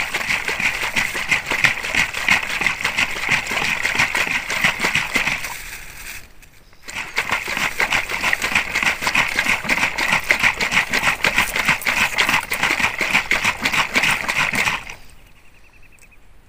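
Liquid sloshing in a plastic bottle of cooking oil and raw eggs shaken hard by hand, in rapid strokes, to emulsify the oil with the egg. The shaking pauses for about a second some six seconds in, starts again, and stops about a second and a half before the end.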